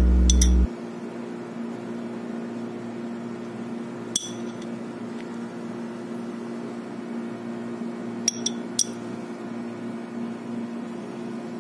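Background music cuts off less than a second in, leaving a steady low hum. Over it, a metal spoon clinks against a ceramic plate and a glass pickle jar: two clinks near the start, one about four seconds in, and three in quick succession around eight seconds.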